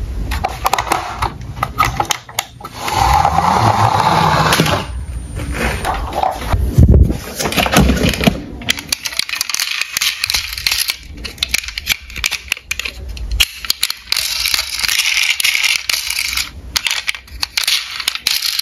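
Toy police cars, plastic and diecast, being handled in a cardboard box: many irregular clicks, knocks and rattles as they touch each other and the box, with rustling between.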